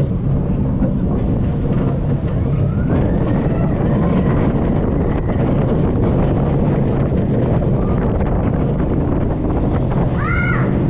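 Gerstlauer family roller coaster train running along its track with a steady loud rumble and wind on the microphone. A rising high squeal comes about three seconds in, and a short high wavering cry near the end.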